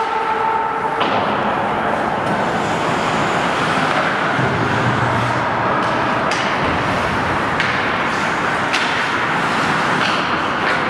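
Ice hockey play heard in an indoor rink: a steady rush of skates carving the ice and rink noise, with sharp clacks of sticks and puck now and then.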